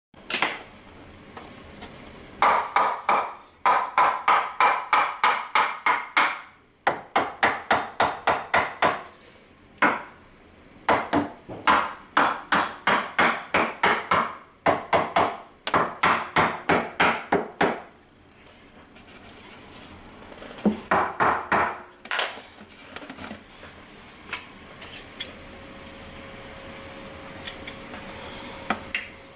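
Wooden support boards being tapped into place with a hammer: quick runs of knocks, about three or four a second, stopping and starting several times, with a last short run about two-thirds of the way through.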